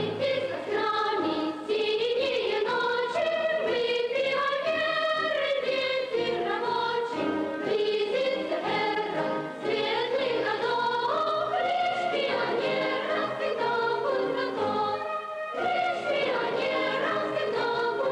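Music: a song sung by a choir, with the melody moving in steps.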